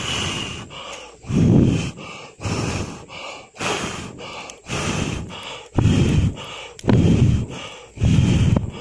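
A person blowing hard on a small wood cooking fire to fan it into flame: about eight forceful puffs of breath, roughly one a second, with quick breaths in between.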